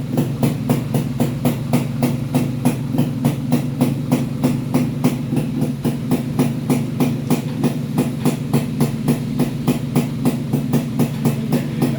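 Yamaha motorcycle engine running at idle, a steady low drone with a regular pulse about three times a second.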